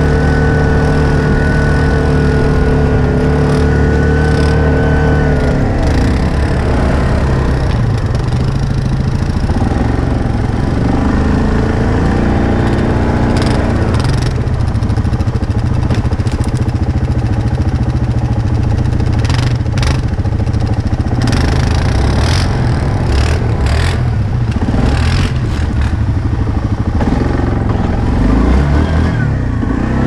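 ATV engine running as the quad rides a snowy trail, holding a steady note for the first few seconds and then rising and falling with the throttle. Short knocks and rattles come through the middle stretch, and the revs climb again near the end.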